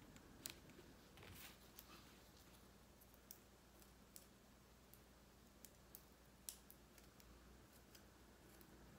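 Near silence with a dozen or so faint, scattered clicks and crackles from small foam sticker pieces being handled and peeled by hand.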